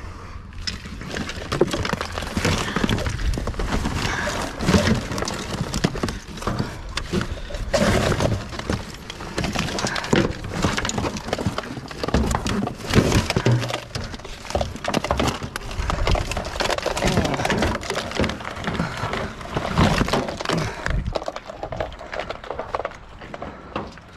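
Rummaging through junk in a full dumpster: a long, irregular run of crackling, rustling and clattering knocks as a tangle of scrap wire and other debris is pulled and shifted, growing quieter near the end.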